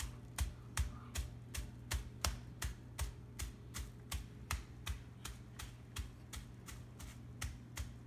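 Flat side of a meat tenderizer mallet pounding a boneless chicken breast wrapped in plastic wrap on a cutting board, flattening it. The blows are short, sharp and steady, about two and a half a second.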